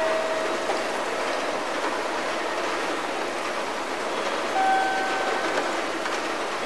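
Railway station ambience between announcements: a steady rushing noise, with a few short steady tones near the start and again about four and a half seconds in.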